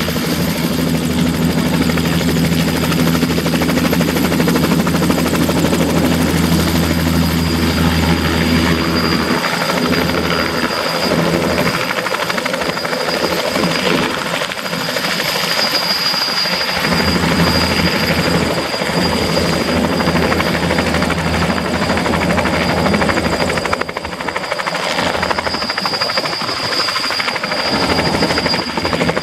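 Bell 206B3 JetRanger helicopter lifting off and moving away in a low hover: the steady high whine of its Allison 250 turboshaft over the noise of the main and tail rotors. The low rotor tones drop away and return partway through as it climbs and turns.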